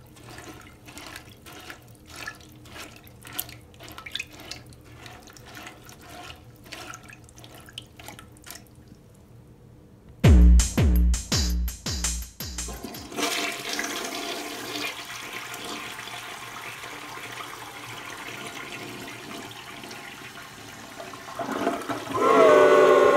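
Soft electronic music with a steady beat, then a few loud bass beats, then a toilet flushing: water rushes through the bowl, and near the end comes a loud gurgle with wavering, falling pitches as the bowl drains, leaving the load of Doritos chips behind.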